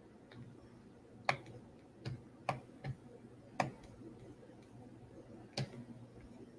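About six faint, sharp clicks at uneven intervals, spread through the first six seconds: someone clicking at a computer while bringing a document up on screen.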